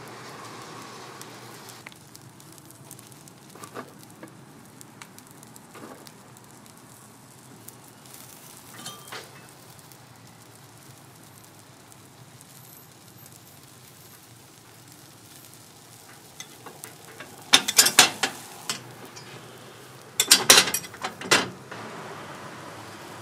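Fish-shaped bread batter sizzling faintly in hot bungeoppang molds, with scattered light clicks. Two bursts of loud clattering come about three-quarters of the way through and again soon after.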